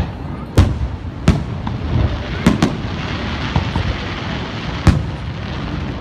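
Fireworks display: sharp bangs of shells bursting, five in six seconds, two of them in quick succession about halfway through, over a continuous low rumble.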